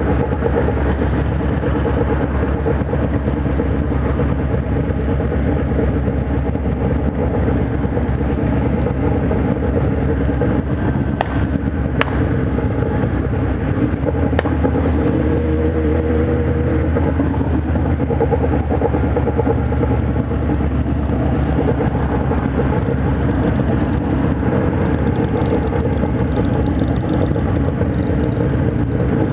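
Kawasaki Z1000 inline-four engine running on the move at low city speed, heard from the rider's own bike, its note steady with a shift in pitch about halfway through.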